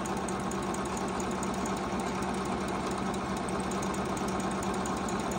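Juki HZL-009 computerized sewing machine running steadily on its own, stitching a decorative pattern with rapid, even needle strokes over a constant motor hum.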